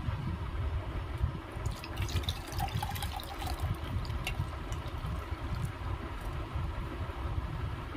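Thick boiled milk pouring from a steel bowl into an unglazed clay pot, trickling and splashing, with the splashes busiest from about a second and a half in to the middle. A low steady rumble runs underneath.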